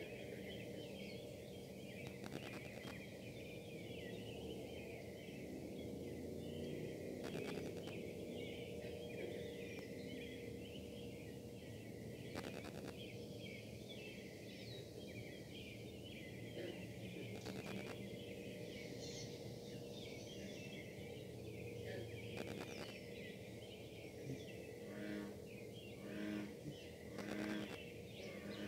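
Metal-casting foundry running: a steady industrial buzz with a held higher tone, likened to a tornado siren. Short buzzing bursts of wifi interference on the recording come roughly every five seconds and bunch together near the end.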